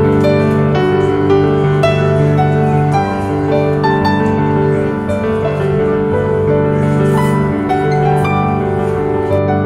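Instrumental background music led by piano, with held low notes under a moving melody.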